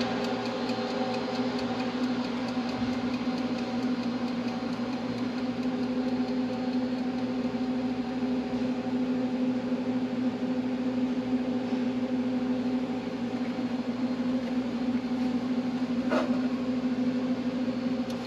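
Steady electric motor hum with one strong low tone and fainter higher tones, unchanging throughout, and a single light click about sixteen seconds in.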